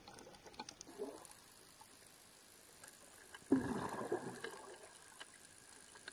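Water noise picked up by an underwater camera, faint and even, with a sudden louder burst of water sound about three and a half seconds in that fades over about a second.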